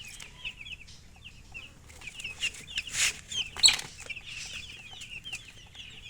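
Baby chicks peeping, many short high peeps overlapping in a quick, continuous chatter. Two louder scratchy sounds cut in about three seconds in.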